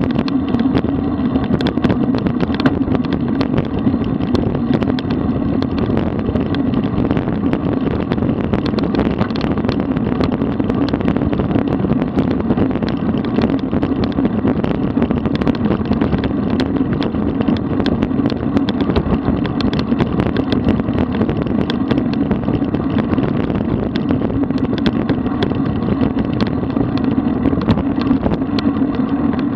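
Steady rush of wind on a bike-mounted camera's microphone, with road-bike tyre and road noise at about 40 km/h and many small ticks.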